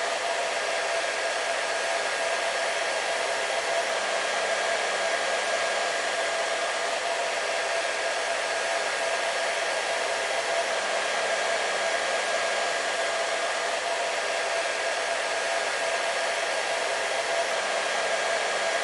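Hair dryer running continuously: a steady, even rush of air with a constant motor hum, unchanging throughout.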